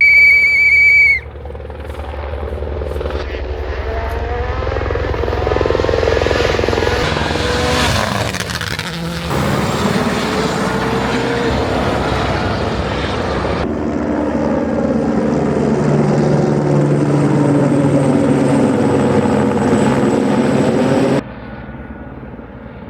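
A loud, steady high beep for about a second, then a WRC rally car's engine coming closer under hard acceleration and passing. Its pitch rises as it nears and falls away after it passes. The sound cuts off abruptly near the end.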